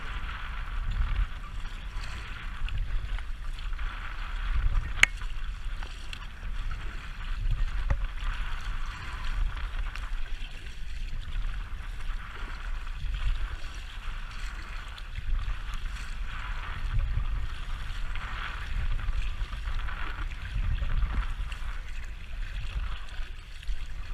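Wind buffeting the action camera's microphone, with water splashing and lapping as a kayak paddle dips in strokes beside an inflatable kayak; a single sharp click about five seconds in.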